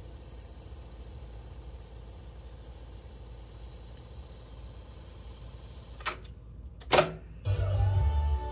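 JVC KD-A55 cassette deck fast-forwarding a tape with a steady low whir. About six and seven seconds in come two sharp clicks of the transport keys as it stops and drops into play, and music from the cassette starts just after.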